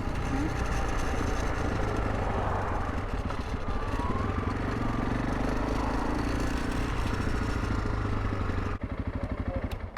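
Honda CRF300 Rally's single-cylinder engine running steadily under the rider. Near the end it drops back to an idle, with an even beat of about nine pulses a second.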